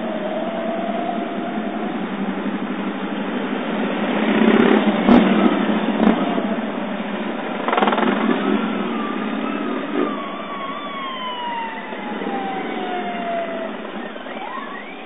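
Police motorcycles riding past close by one after another, their engine noise swelling loudest about five seconds in and again near eight seconds, with other traffic behind. In the second half a long whine falls steadily in pitch.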